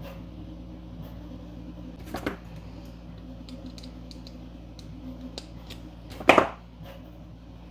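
Hand work on small 3D-printed extruder parts and their screws and nuts: light clicks and taps, with a louder knock about two seconds in and the loudest one a little after six seconds, over a steady low hum.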